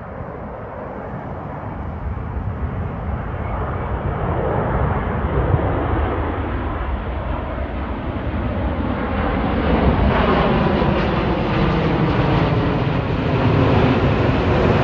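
Jet airliner on final approach, a steady engine rumble that grows louder and brighter as it nears and passes close by.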